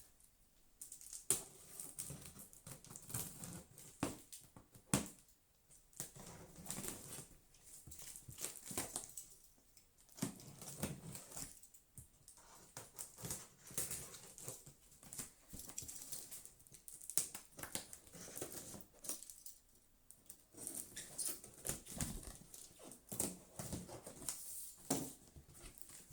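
A cardboard box and its packing being handled and opened by hand: irregular scratching and rustling with short knocks and clicks.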